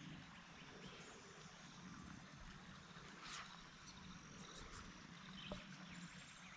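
Near silence: faint outdoor background hiss with a couple of soft ticks.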